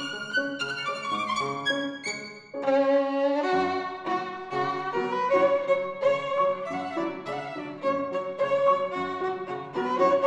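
Violin and Steinway grand piano playing together. Quick short notes for the first two seconds or so, a brief drop in level, then longer violin notes over low piano bass notes.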